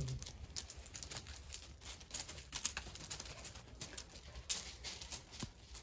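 Puli puppies scuffling and playing on concrete paving and loose gravel: irregular light clicks, taps and scrapes of claws and paws, with gravel shifting underfoot.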